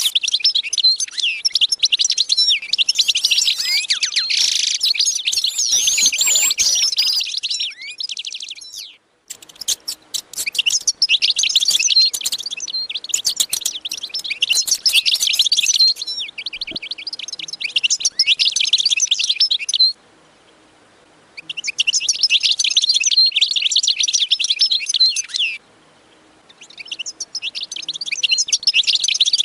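Many small birds chirping and twittering at once, a dense high-pitched chorus that cuts off abruptly a few times.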